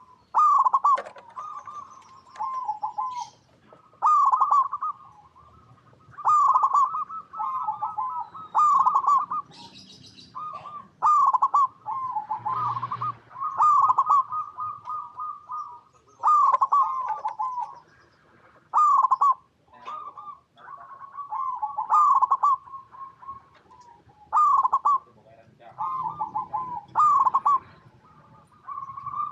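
Zebra dove cooing: phrases of short, rapid, curling coo notes, repeated every couple of seconds.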